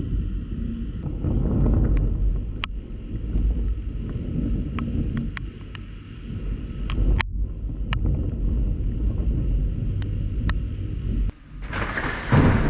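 Thunderstorm heard through a GoPro's waterproof housing: a low, wavering rumble with scattered sharp ticks of raindrops hitting the case. Near the end, after a brief dropout, a loud thunderclap breaks in over rain hiss.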